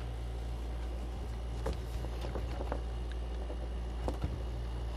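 A few light clicks and taps from handling an oscilloscope probe and its BNC connector and the scope's front-panel controls, two of them close together near the end, over a steady low hum.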